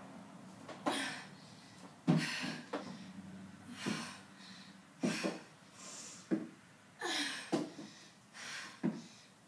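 A woman breathing hard through an exercise, with forceful hissing breaths coming about once a second, and a few sharp knocks in between.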